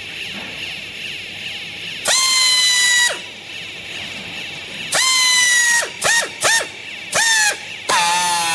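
Clothes baling machine running with a steady high hum, broken by loud high-pitched squeals: four of about a second each and two short ones, each sliding up at the start and dropping away at the end.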